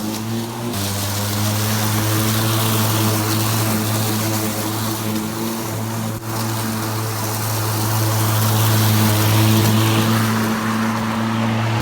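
Battery-powered 40V brushless cordless lawn mower running, its motor and spinning blade making a steady hum over a hiss, with small shifts in pitch about a second in and near the end.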